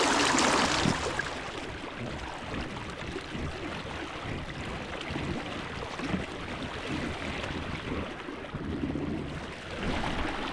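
River water rushing, louder for about the first second and then steady and quieter, over a low, uneven rumble.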